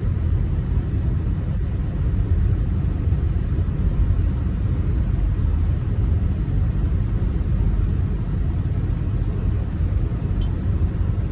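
Rainstorm wind buffeting the microphone: a steady low rumble with a fainter hiss of rain.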